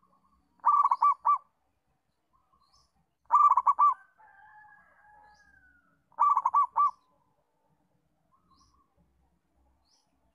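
Zebra dove (perkutut) cooing: three loud phrases of quick staccato coos, each under a second, about 2.7 s apart. Between the second and third phrase comes a fainter drawn-out note, with faint high chirps in the background.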